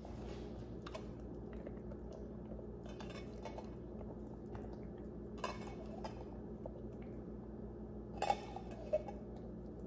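A metal utensil scraping and clinking against the inside of an opened tin can as canned beans are scooped out and dropped into a glass baking dish: a few faint, short clinks, the clearest near the end, over a steady low hum.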